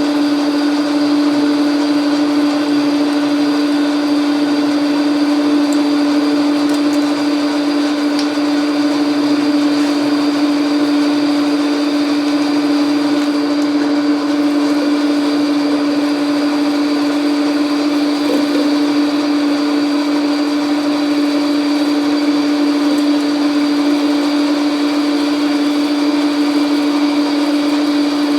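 Logan metal lathe running steadily under power: a constant motor-and-drive hum with one strong, unchanging droning tone.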